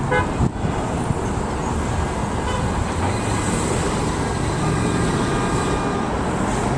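Steady road traffic noise with a low rumble. Right at the start comes a brief pitched sound with several overtones.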